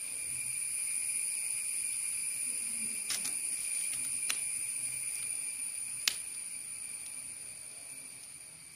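A steady, high-pitched insect trill that swells and then fades, crossed by three sharp clicks of a metal spoon scraping seeds from a halved cucumber; the last click, about six seconds in, is the loudest.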